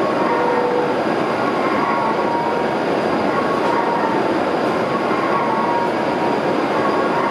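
Steady, even noise of a Hokuriku Shinkansen E7/W7-series train standing at the platform with its equipment running, with faint tones that come and go.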